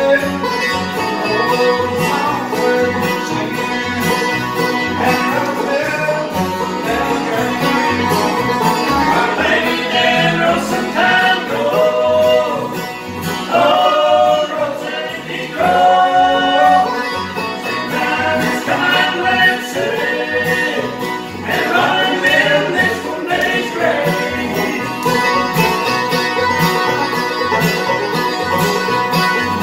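Bluegrass band playing live: banjo, two acoustic guitars and upright bass, with a steady plucked bass beat. Two men sing a verse through the middle, starting about nine seconds in and stopping a little before the last few seconds of instrumental playing.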